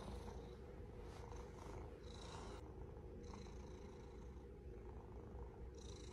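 Domestic cat purring steadily and quietly.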